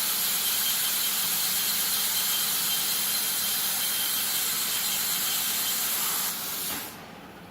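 Steady, loud hiss from a CNC H-beam drilling and band sawing machine at work, with a faint high whine, dying away near the end.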